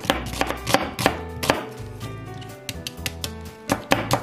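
Kitchen knife slicing an onion thinly on a wooden cutting board: a series of crisp knocks as the blade cuts through and hits the board. The knocks come steadily at first, thin out around the middle, then come quickly near the end.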